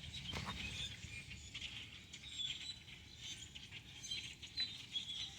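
A large flock of small birds chirping, with many short, high calls overlapping.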